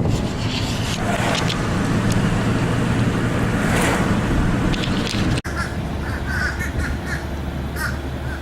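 A dense rushing noise with a steady low mechanical hum, cut off abruptly about five seconds in. It gives way to a steady low hum with crows cawing over it.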